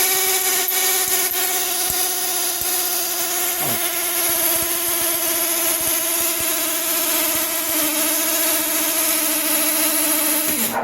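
Blue-Point pneumatic air ratchet running free on compressed air: a steady whine over hissing air, dipping slightly in pitch near the end before cutting off suddenly. It runs on by itself because its trigger button does not return, so it can't be stopped.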